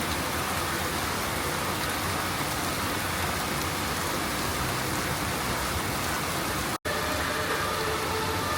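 Steady rain falling, an even hiss. About seven seconds in it cuts out for an instant and comes back.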